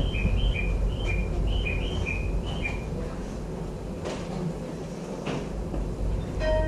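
Train door chime, a two-note electronic ding-dong going high then low and repeating several times, followed by two knocks as the sliding doors shut, over the low hum of the standing E233-series electric train.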